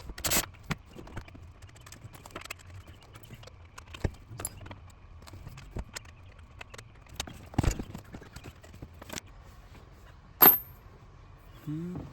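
Irregular metallic clinks and knocks of hand tools and hardware being handled during the swivel seat plate fitting, with one sharp, louder knock near the end.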